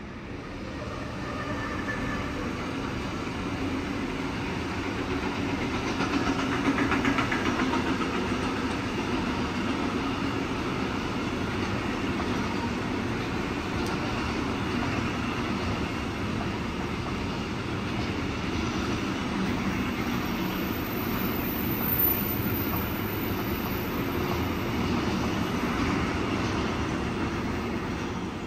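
Freight train behind a Class 189 electric locomotive rolling past: a steady rumble and clatter of wagon wheels on the rails that builds over the first few seconds as the train arrives. The wagons carry road semi-trailers; a single sharp knock sounds about 22 seconds in, with a thin high whine around it.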